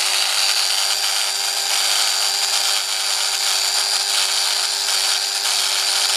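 Angle grinder running steadily at full speed with a constant high whine, its disc grinding down excess soft solder on an old double-barrelled shotgun's breech.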